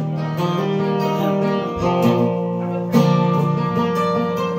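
Acoustic guitar strummed, chords held and ringing out, with fresh strums about two and three seconds in; no singing.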